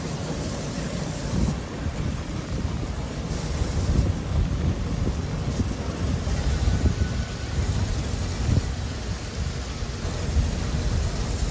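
Steady rushing hiss of a fire hose's water stream spraying down into a ship's hull, with wind rumbling on the microphone.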